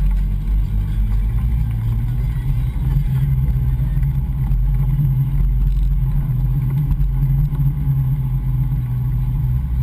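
Steady low rumble of wind buffeting and road vibration on a bicycle-mounted action camera rolling over asphalt.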